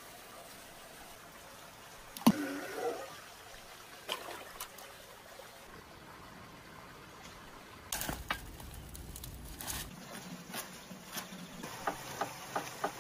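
A sharp knock about two seconds in with a brief ringing after it, then scattered small clicks. Near the end, a cleaver chopping on a wooden board, a quick run of chops.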